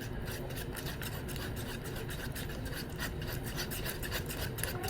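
White-glue slime being stirred in a bowl as borax activator is worked in: steady scraping and rubbing with many small sticky clicks and pops.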